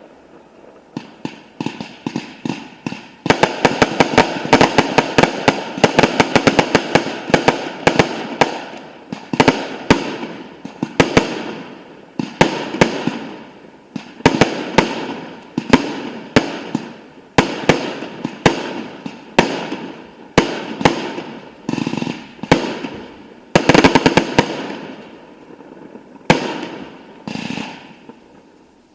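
Aerial fireworks display: shell bursts banging every second or two with dense crackling, each volley echoing away. The volleys thicken about three seconds in and thin out near the end.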